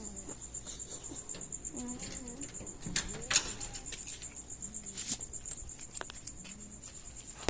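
Crickets chirping in a steady, fast, even pulse, with a handful of sharp knocks and clicks around the middle, the loudest about three and a half seconds in.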